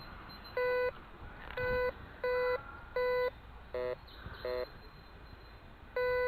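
Metal detector giving seven short tone beeps as the coil passes back and forth over a buried target. Most are one steady mid-pitched tone, and two near the middle come out as a choppier, warbling tone. The target is one the detectorist reckons is probably a pull tab.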